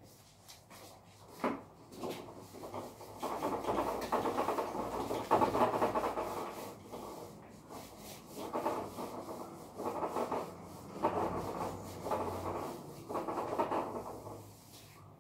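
Whiteboard eraser wiping marker off a whiteboard in a series of rubbing strokes, with a light knock about one and a half seconds in.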